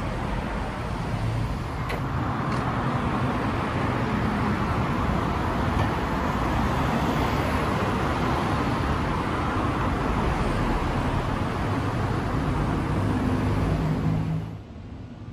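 Steady road traffic noise, a continuous wash of passing vehicles with a low rumble, which drops away suddenly near the end.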